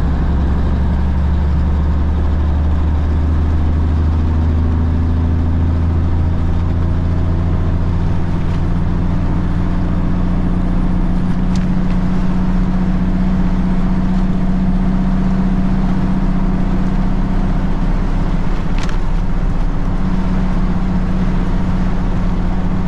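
Diesel engine of a 1983 Kenworth K100 cabover truck running under way, heard inside the cab as a steady low drone with road noise. Its tone shifts upward about a third of the way through.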